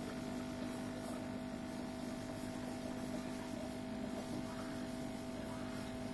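Steady electric hum of running aquarium equipment, holding two constant pitches, one low and one in the middle range, over a faint even hiss.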